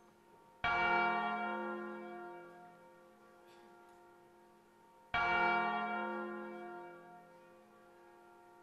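Deep church bell tolling twice, about four and a half seconds apart, each stroke starting suddenly and ringing out slowly.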